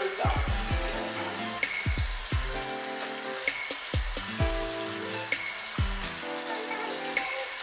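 Background music with a steady beat: deep drum hits and held bass and synth notes that repeat in a loop, over a steady hiss.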